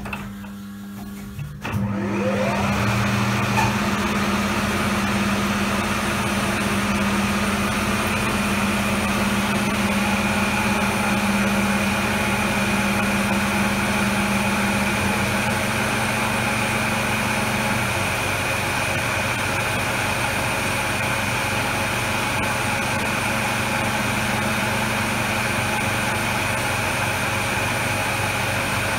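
MAHO MH400E milling machine's spindle starting about two seconds in with a short rising whine, then running steadily at about 250 rpm while a single-point boring bar thread-mills the bore of a cast iron ring on a first pass.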